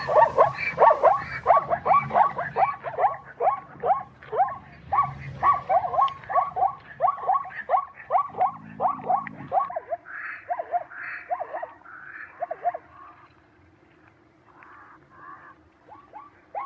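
An animal's short barking calls, repeated rapidly at about three a second, each one falling in pitch. They fade out near the end.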